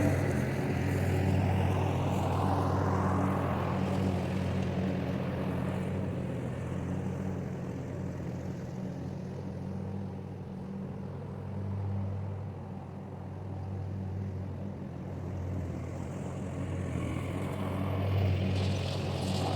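Lawnmower engine running steadily while mowing. It dips in loudness about midway and grows louder again near the end as the mower moves.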